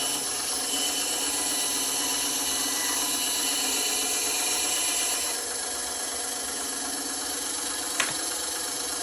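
Bandsaw running steadily, a little quieter from about five seconds in, with a single sharp click near the end.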